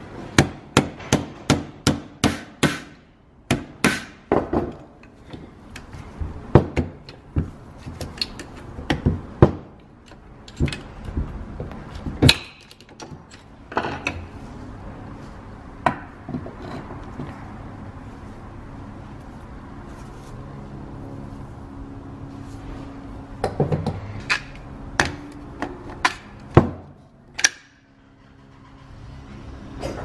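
Sharp metal knocks and clicks from hand tools and parts as the electronic steering lock module is worked onto a Mercedes steering column. There is a quick run of knocks, about three a second, for the first dozen seconds, then scattered knocks with a few close together near the end.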